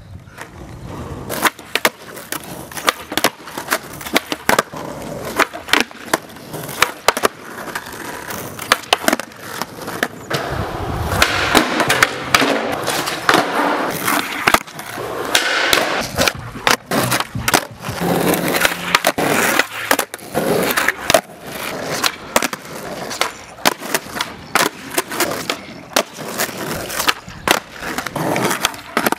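Skateboard wheels rolling on asphalt, with many sharp pops and clacks as the tail is snapped for flip tricks and the board lands back under the feet.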